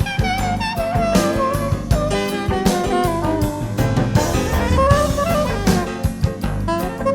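Instrumental jazz-funk recording played from cassette tape: a lead electric guitar bending and sliding through its notes over a drum kit and bass groove.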